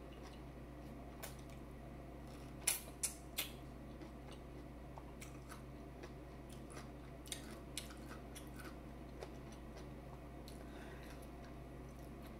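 A person eating close to the microphone: quiet chewing with scattered sharp clicks, the loudest a quick run of three about three seconds in, over a faint steady low hum.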